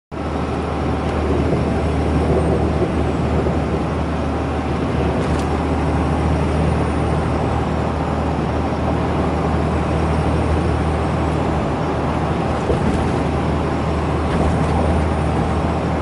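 2012 Ram 2500's 6.7-litre Cummins inline-six turbo diesel running, heard from inside the cab: a steady low drone, with a faint high turbocharger whistle that rises and falls several times.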